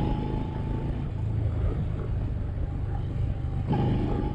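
Motorcycle riding noise picked up by a microphone inside a helmet: a steady low engine and wind rumble. A steady higher tone comes in briefly twice, near the start and again near the end.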